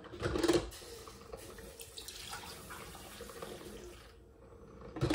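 A glass coffee carafe is drawn out of a drip coffee maker with a sharp clunk just after the start, then hot coffee is poured from it into a ceramic mug in a steady pour.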